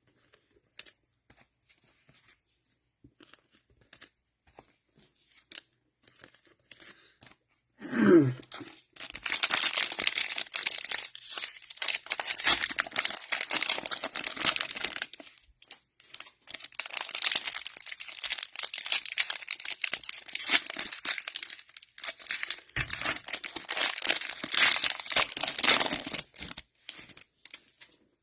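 Cellophane wrappers of Mosaic football cello packs being torn open and crinkled, in two long stretches of dense crackling from about nine seconds in, with a short pause partway. Before that there are only faint clicks, and a brief sound falling in pitch comes just before the tearing starts.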